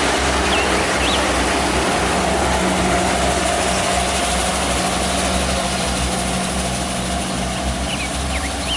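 Kubota DC-70 Plus combine harvester running steadily under load, its diesel engine hum and threshing machinery making a continuous dense noise.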